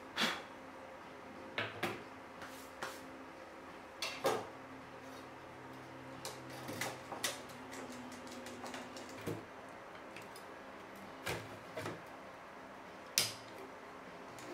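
Scattered clicks and clacks of 3.5-inch hard drives and metal hot-swap drive trays being handled and screwed together with a screwdriver, a dozen or so sharp knocks at uneven intervals.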